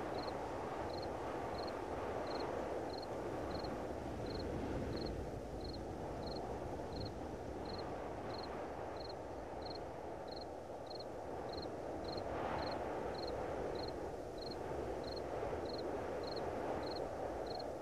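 Sound-designed sci-fi spaceship ambience: a steady low engine-like drone, with a short high chirp repeating evenly about one and a half times a second.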